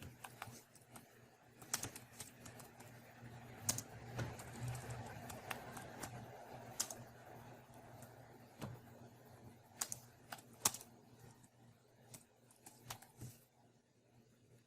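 Typing on a laptop keyboard: irregular keystrokes in loose clusters with short pauses, over a faint low steady hum.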